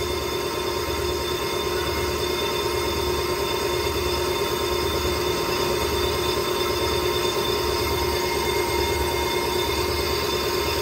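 Brake lathe turning a warped brake disc while its cutting tool takes a resurfacing pass across the face. It gives a steady metallic whine of several held tones that does not change.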